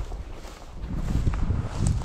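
Footsteps and rustling through dry grass and cover, with wind buffeting the microphone as an uneven low rumble.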